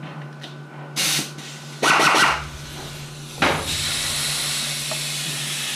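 Compressed air hissing from a pneumatic tool: three short bursts, the second with a faint motor whine in it, then a steady hiss from about three and a half seconds in.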